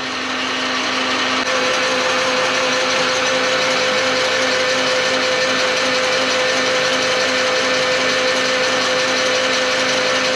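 Metal lathe running with the power feed engaged, its cutting tool taking a chip off a metal part; a steady gear noise, joined about a second and a half in by a second steady tone.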